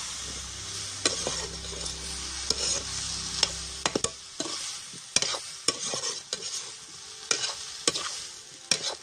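Spiced raw-banana pieces sizzling in a hot metal kadai while a perforated metal spatula stirs them, its strokes scraping and clicking against the pan many times. A low hum under the sizzle stops about four seconds in.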